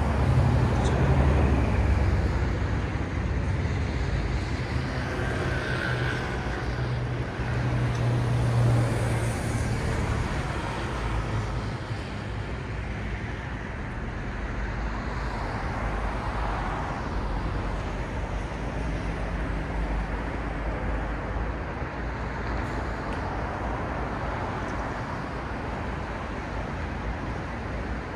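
Road traffic at a city intersection: a steady wash of passing vehicles, with a low rumble that is loudest in the first ten seconds or so.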